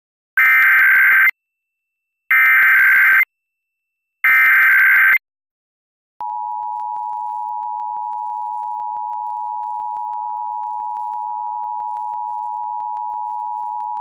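Emergency Alert System tones for a Required Monthly Test: three short bursts of the SAME digital header, each about a second long, then about six seconds in the steady two-tone EAS attention signal starts and holds.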